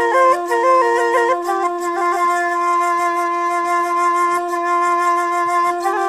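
Background music: a melody in quick stepping notes over a steady drone, settling into one long held note through the middle.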